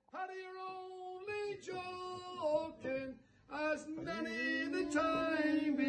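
A single voice singing a slow, unaccompanied song, holding long steady notes and stepping between them, with a brief pause for breath about three seconds in.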